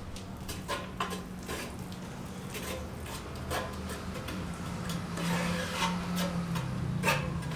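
Irregular scraping or rasping strokes, like tool work on a surface, over a steady low hum.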